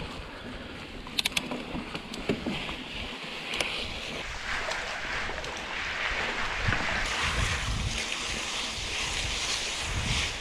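Mountain bike ridden over a rough dirt track and through a muddy puddle: a few sharp rattles from the bike near the start, then a steady hiss of tyres splashing through water, with wind buffeting the camera microphone.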